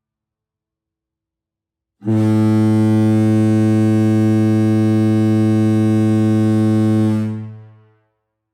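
Kahlenberg KM-110 ship horn giving one steady, low blast of about five seconds, starting abruptly about two seconds in and dying away over about a second.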